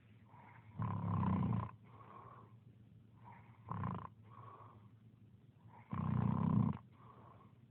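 Snoring in a slow rhythm: two long, loud snores about five seconds apart, a shorter one between them, and softer breaths in the gaps.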